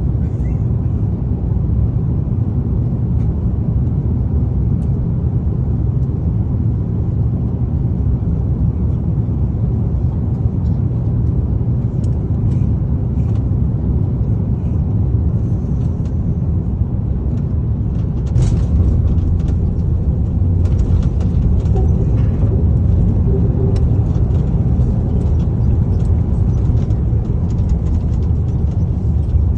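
Airbus A330-900 on its landing rollout with the brakes working: a steady, deep rumble that grows a little louder about 18 seconds in, with scattered light rattles above it.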